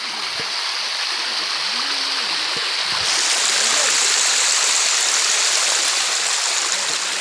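Water rushing over rocks in a stream, a steady dense rush that grows brighter and a little louder about three seconds in.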